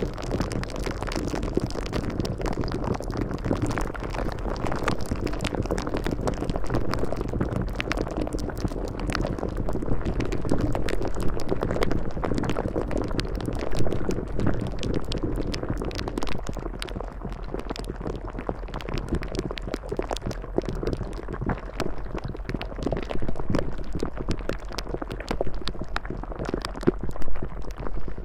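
Steady bubbling, liquid-like noise, full of small pops, with a steady low hum beneath it.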